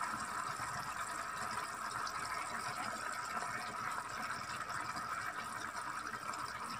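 Lamb pieces in oil, smen and spices simmering in a steel pot, a steady bubbling and sizzling hiss.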